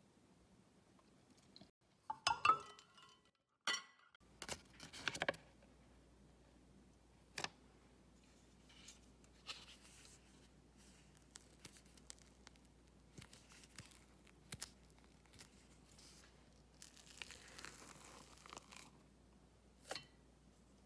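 A silicone spatula scraping and knocking against a glass measuring bowl, with clinks of a plastic tub against the glass as whipped cream is moved between them. The loudest knocks and clatter come about two to five seconds in. Softer scrapes and clicks follow, with a longer scraping stretch near the end.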